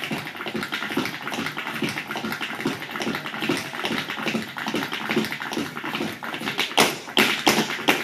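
A step dancer's feet tapping and stamping on a stage in a fast, even rhythm, with no music. The taps get louder and sharper near the end.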